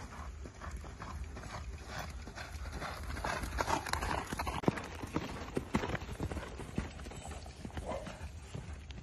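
Horse cantering on a sand arena: a steady run of hoofbeats, with a few sharper knocks about halfway through, over a low steady rumble.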